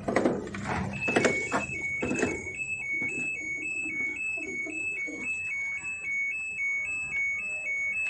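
A simple electronic tune of single high beeping notes stepping up and down in a quick, even pattern, with a few knocks and clicks in the first two seconds.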